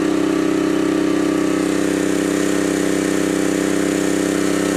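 Honda EM400 portable generator's engine running steadily under a light load as it charges a battery through a solar charge controller.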